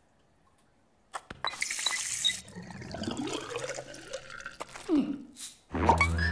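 Bathroom tap turned on over a ceramic sink: a short gush of running water about a second and a half in, then drips and clinks in the basin. A louder low sound comes near the end.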